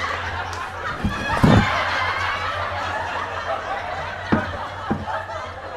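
Engine oil gushing out of the open drain-plug hole into a plastic drain container held up against the sump, a steady splashing pour with a few dull knocks, the loudest about a second and a half in.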